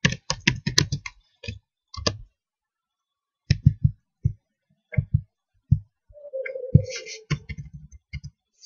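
Computer keyboard typing and mouse clicks. A quick run of keystrokes in the first second is followed by scattered single clicks.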